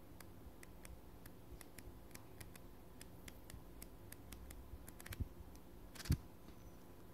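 Paper pages of a flip-book notepad being let slip one at a time off the thumb, a faint tick about four times a second. About five seconds in the pages riffle faster, ending about six seconds in with a quick flurry and a dull thump, the loudest sound.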